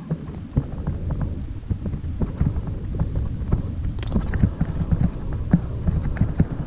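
Footsteps pushing through dry brush and grass, stems crackling and snapping underfoot with irregular thumps, over a heavy rumble of wind and handling on the camera's microphone. A sharp click about four seconds in.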